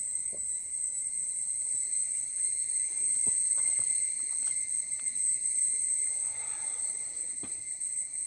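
Steady, high-pitched shrilling of an insect chorus, unbroken throughout, with a few faint ticks.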